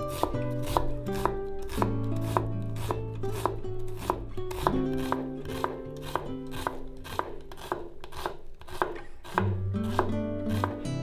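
Chef's knife dicing an onion on a wooden cutting board: a steady rhythm of sharp chopping strikes against the wood, about three a second. Soft background music plays underneath.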